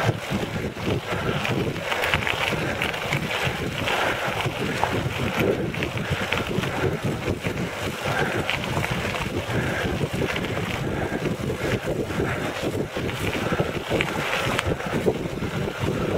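Tyres of a recumbent quad cycle rolling over a gravel track, a steady crunching and rattling with wind noise on the microphone.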